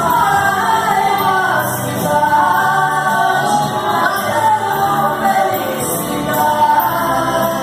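Gospel song: voices singing over steady instrumental accompaniment.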